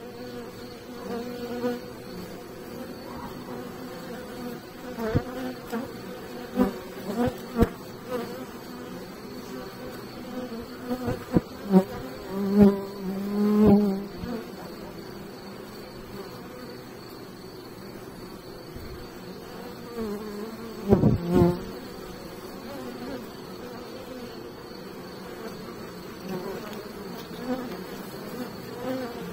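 Honey bees buzzing at a wooden hive entrance: a steady hum from the colony, with individual bees flying close by in several short, louder buzzes, the loudest about halfway through and again about two-thirds of the way through.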